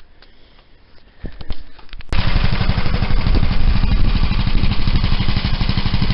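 Massey Ferguson tractor engine running loud and close with a fast, even pulse, cutting in suddenly about two seconds in after a few faint clicks.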